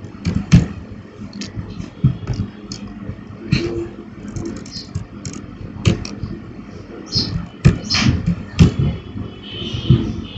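Computer keyboard keystrokes, irregular single clicks with gaps between them as a word is typed into a code editor, over a steady low background hum.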